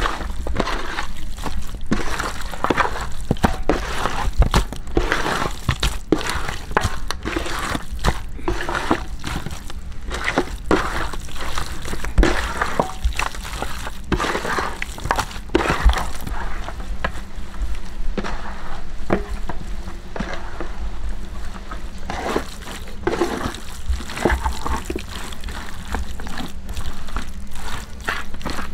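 Hands mixing chunks of raw giant trevally fish with salt, turmeric and chilli masala: a continuous, irregular wet squishing of the pieces being turned and rubbed together.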